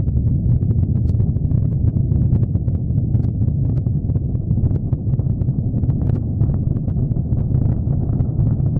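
Proton-M rocket's six first-stage RD-275M engines at liftoff: a steady deep rumble with dense crackling over it.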